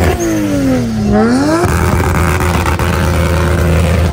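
Mk4 Toyota Supra's engine revving hard. Its pitch drops and climbs again over the first second and a half, then it holds at a steady high pitch under a loud harsh roar of wheelspin: a burnout leaving tire smoke.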